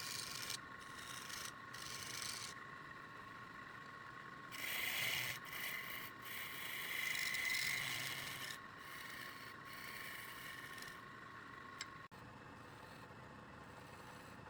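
A tool rubbing and rasping against wood turning on a lathe, in spells, loudest about five seconds in and again around seven to eight seconds, over a steady whine.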